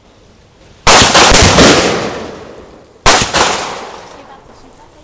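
Suppressed Smith & Wesson Model 76 9mm submachine gun firing two short full-auto bursts, one about a second in and another about three seconds in, each a rapid string of shots that trails off slowly.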